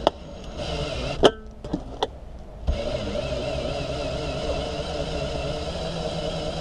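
A Mongoose cord-winding windshield cut-out tool's small electric motor starts about two and a half seconds in and runs steadily, winding the cutting line through the windshield urethane. A few sharp clicks come before it.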